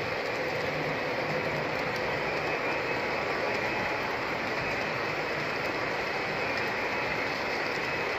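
Traditional three-rail O gauge model train of double-stack well cars rolling past on its track: a steady running noise of metal wheels on the rails.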